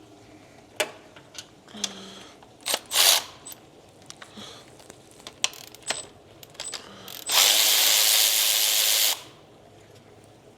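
Tools at work on a car engine during spark-plug removal: scattered clicks and knocks of tools and parts, then a loud rushing burst lasting about two seconds near the end.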